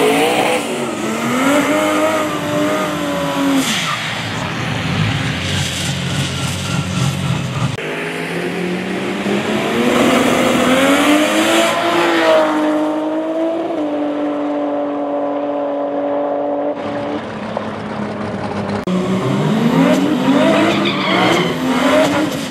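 Barra-powered Ford Cortina drag car's engine revving, its pitch repeatedly climbing and falling, with abrupt cuts between takes about 8 and 17 seconds in.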